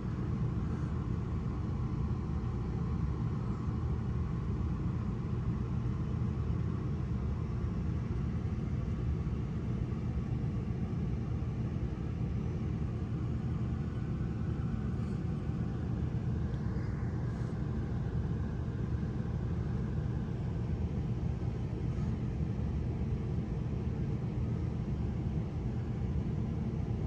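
Steady low rumble of strong dust-storm wind buffeting the motorhome, running on without a break.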